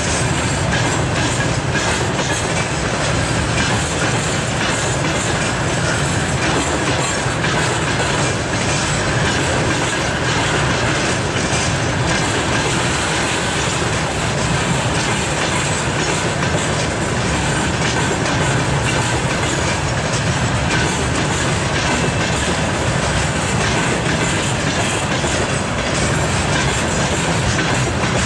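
A freight train of railway tank cars rolling past close by: a steady rolling noise from the wheels, with their clacking over the rail joints running through it.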